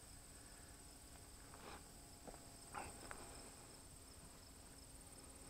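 Near silence: faint steady, finely pulsing high insect trilling in a grassy field, with a few faint short sounds near the middle.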